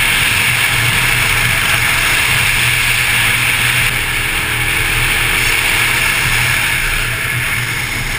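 Motorcycle riding at road speed heard from an on-bike camera: steady wind rush over the microphone, with the engine running underneath.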